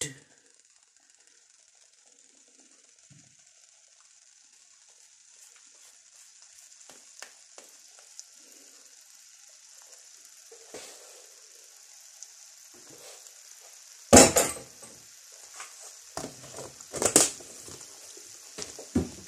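An egg frying in butter in a small pan, a steady sizzle that slowly grows louder. Two loud clattering knocks come about three-quarters of the way through, with a few lighter clicks.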